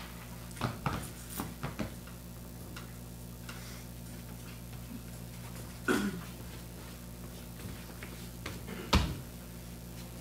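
Steady low electrical hum under scattered knocks and clicks: a few quick ones in the first two seconds, a louder knock with a short falling sweep about six seconds in, and a sharp knock about nine seconds in.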